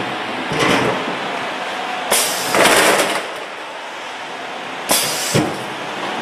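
A potato weighing and packing machine is running, with potatoes clattering along its conveyor. Twice, about two seconds in and again about five seconds in, there is a loud burst of hissing and rattling as the weigh hopper's gate opens and potatoes drop through. The second burst ends in a thump.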